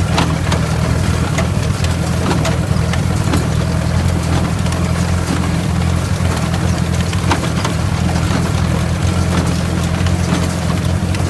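Ford Workmaster tractor engine running steadily, driving a New Holland 66 hay baler, with scattered clicks and clatter from the machinery.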